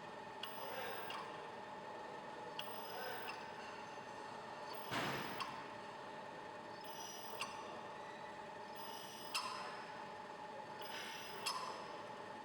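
Milling machine running with a steady whine while its drill bit cuts into an aluminium workpiece, with short scrapes and clinks every couple of seconds, the loudest about five seconds in.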